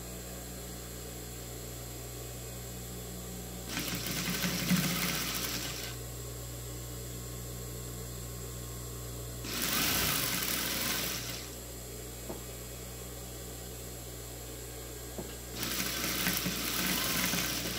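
Industrial sewing machine stitching a hem in three short runs of about two seconds each, stopping in between, over a steady low hum.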